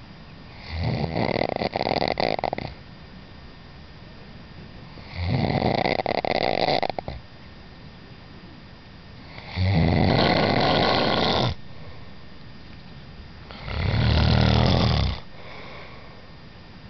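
Snoring: four long snores, each lasting about one and a half to two seconds, coming roughly every four seconds with quiet breathing gaps between.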